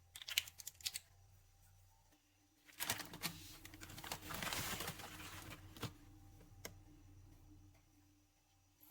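Handling noises: a quick run of small clicks, then about three seconds of clattering and rustling, followed by a couple of single taps.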